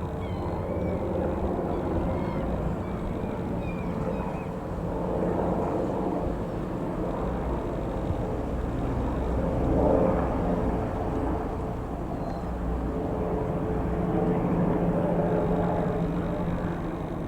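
Bell 206 JetRanger II helicopter flying over, a steady engine and rotor rumble that swells about ten seconds in and again a few seconds later. Faint bird chirps over it at the start.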